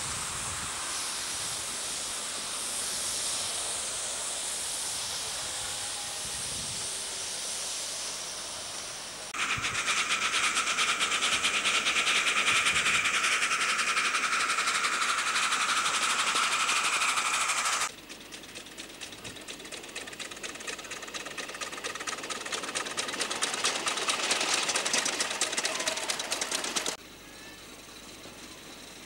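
Miniature live-steam locomotives running on a ridable track: a steady hiss of steam at first, then about a third of the way in a much louder, fast beating sound with a steady high ring that stops abruptly. Another loud beating run builds and cuts off near the end, giving way to a quieter running sound.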